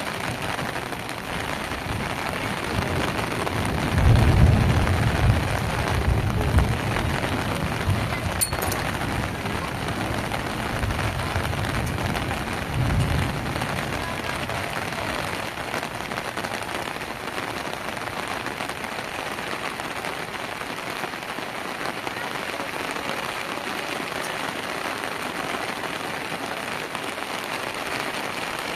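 Steady heavy rain falling, with two spells of low rumbling, the louder about four seconds in and another around twelve seconds in.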